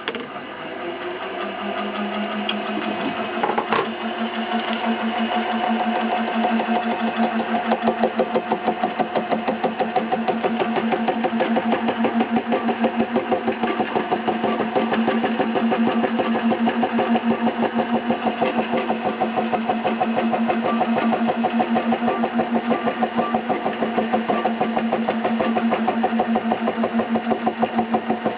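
Milling machine starting up and running, its form cutter cutting a gear tooth into a Delrin blank: a steady hum with a fast, even pulsing that builds over the first few seconds and then holds.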